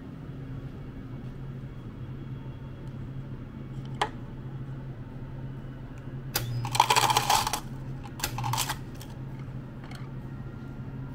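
Ice dispenser dropping ice cubes into a paper cup in two clattering bursts, the first about a second long and a shorter one soon after, over a steady low hum. A single click comes shortly before.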